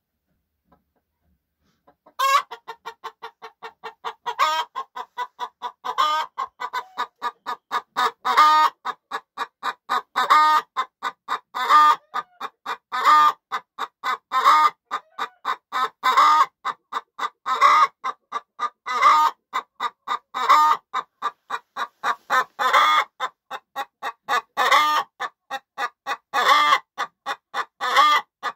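Domestic hen cackling about two seconds in: a steady run of short clucks broken by a louder, drawn-out call about every second and a half. This is the cackle a hen makes just before she lays an egg.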